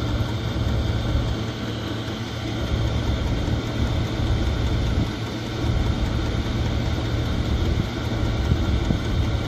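Chinese 5 kW diesel air heater running steadily at its high setting: an even fan-and-burner rush over a steady low hum.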